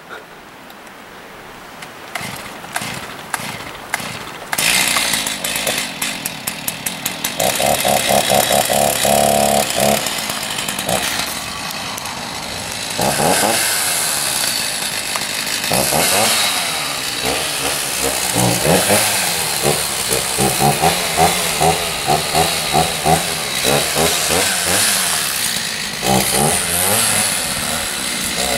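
Gasoline chainsaw running: it comes up to speed about four seconds in, then runs on with the pitch rising and falling again and again as the throttle is opened and let off while cutting.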